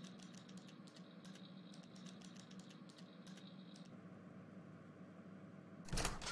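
Faint typing on a computer keyboard: quick, irregular key clicks that stop about four seconds in. A brief, louder burst of noise comes near the end.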